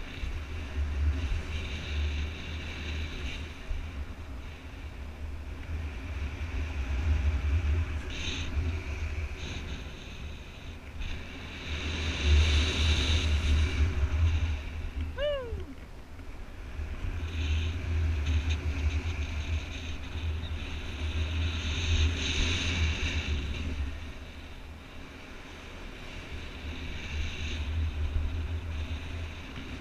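Wind rushing and buffeting over the helmet camera's microphone during paraglider flight, rising and easing in gusts with two louder swells near the middle and toward the end. About halfway there is a brief falling tone.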